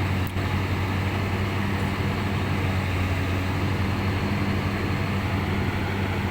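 Backhoe's diesel engine running steadily with a constant low hum.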